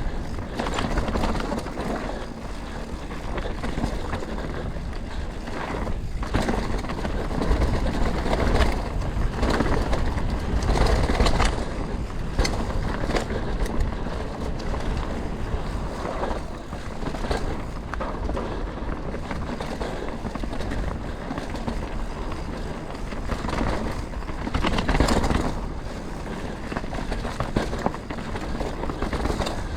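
Canyon Spectral 125 full-suspension mountain bike ridden down a trail: continuous tyre noise over dirt and rock with a low rumble, broken by frequent rattles and knocks from the bike.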